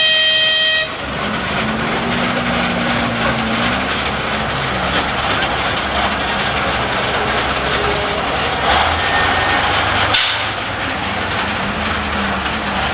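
TU2 narrow-gauge diesel locomotive sounding a blast on its horn, which stops about a second in. The diesel engine keeps running as the locomotive rolls slowly along, with a short burst of hiss near the end.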